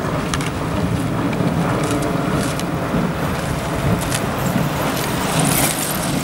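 Outboard motor of a following motorboat running steadily, a low even hum, with a few faint clicks over it.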